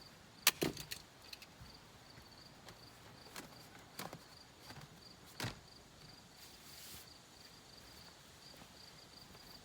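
Crickets chirping steadily, with a few sharp clicks and knocks of handling, the loudest about half a second in and others scattered through.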